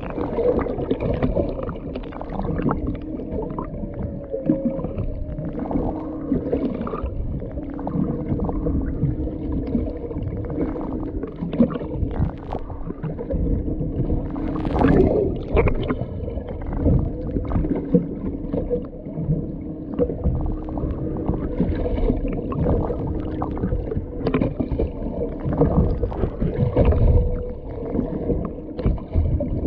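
Underwater sound of humpback whale song, with gliding moans. Under it runs a steady hum from the boat's engines, and there is sloshing water noise against the hull.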